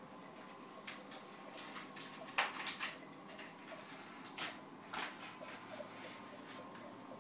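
A faint steady hum with a few short clicks and rustles, the loudest a cluster about two and a half seconds in.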